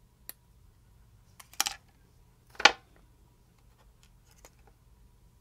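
Sprue cutters snipping a small injection-molded styrene part off its plastic sprue: two sharp snaps about a second apart, the second the loudest, with a faint click before them and a few light ticks of handling after.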